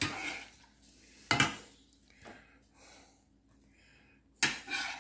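Slotted metal serving spoon scraping and knocking against a stainless steel frying pan and a ceramic plate while pasta is scooped and served. Three short clatters: at the start, about a second and a half in, and near the end.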